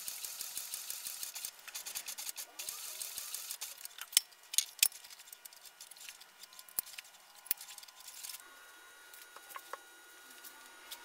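Cobra heavy-duty leather sewing machine stitching through thick veg-tan leather: a rapid, even run of needle strokes, which becomes irregular after about a second and a half. It then gives a few separate loud clicks around four to five seconds in and stops.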